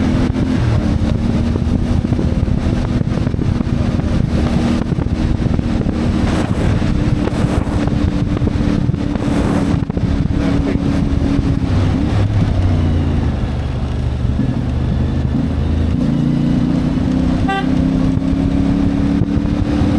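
CFMoto 450MT's parallel-twin engine running while the bike is ridden, its pitch dropping as it slows a little past the middle and rising again as it pulls away.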